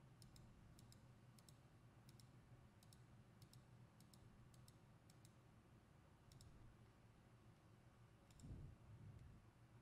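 Faint computer mouse clicks, about a dozen at uneven intervals, over near silence, made while placing measurement points in takeoff software. A soft low thud comes near the end.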